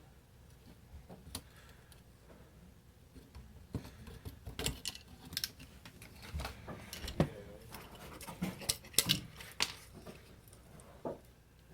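Irregular sharp clicks, taps and small metallic rattles of tools and small parts being handled, busiest in the middle of the stretch.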